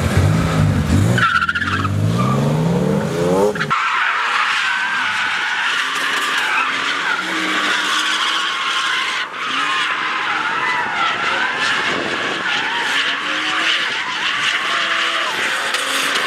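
Two BMW E36 drift cars' engines revving up, rising in pitch. About four seconds in the sound changes abruptly to a long run of tyre squeal as both cars slide sideways in a tandem drift, with the engines' revs rising and falling beneath it.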